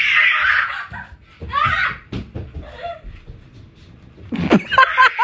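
A person laughing and speaking, with a breathy laugh in the first second and a higher, wavering voice near the end.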